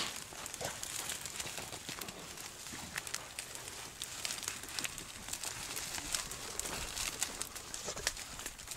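Dry brush and briars rustling, with many small snaps and clicks of twigs and leaves scattered throughout.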